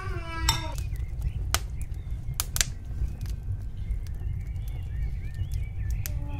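A few sharp clinks of a spatula and glass against a glass mixing bowl as cake batter is stirred, over a steady low rumble. A child's high-pitched voice is heard briefly at the start.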